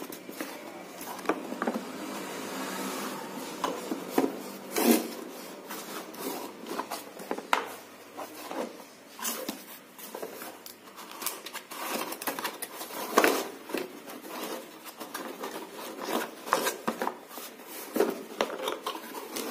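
Small cardboard box being handled and opened by hand: irregular scraping and rubbing of the cardboard flaps, with a few sharp knocks and clicks.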